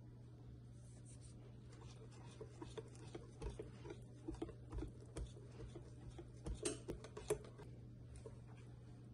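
Wire balloon whisk stirring thick cake batter in a glass bowl: irregular soft clicks and taps of the wires against the glass with wet stirring. The loudest knocks come about two-thirds of the way in, and the tapping stops shortly before the end.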